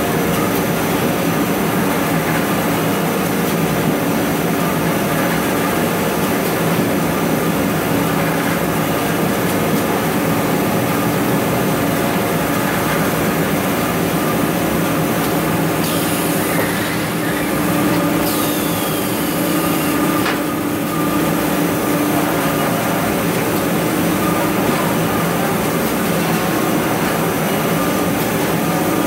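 Toilet paper cutting machine running, a loud steady mechanical noise. There is a short hiss about sixteen seconds in and a falling whine a couple of seconds later.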